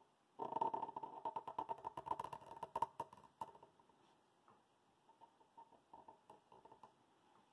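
Sharpie marker squeaking and scratching across paper in a quick run of strokes for about three seconds, then a few scattered light scratches.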